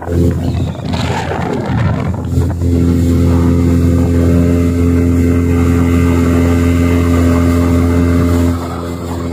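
Yamaha 40 hp outboard motor running under way, uneven for the first couple of seconds, then held at steady high revs before easing off about eight and a half seconds in. It is being power-tested after its carburettor and diaphragm were cleaned, and the uploader calls it nimble straight away.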